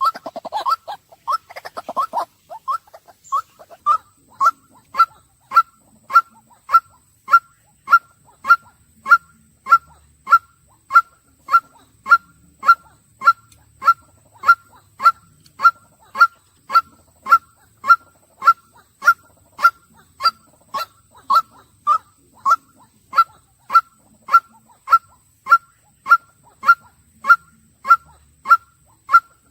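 White-breasted waterhen calling: a quicker, lower jumble of notes in the first couple of seconds, then a long monotonous run of short identical call notes at about two a second.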